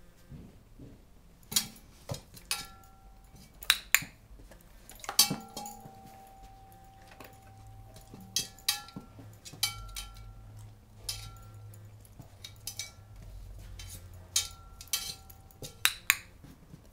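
A dog's paws and claws knocking against a metal roasting pan as it steps in and out of it: about a dozen sharp metallic clinks, with the pan ringing on after the louder ones. The longest ring follows a hard knock about five seconds in.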